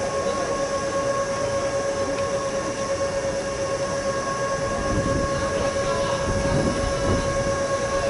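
Steady whine from a powered-up, parked KuMoYa 145 electric service car's onboard equipment, a few even tones held without change, over a bed of yard noise that grows into a low rumble about five seconds in.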